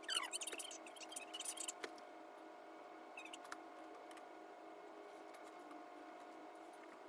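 Fast-forwarded classroom audio: voices sped up into brief high chattering squeaks during the first two seconds, then a faint steady hum with a few scattered ticks.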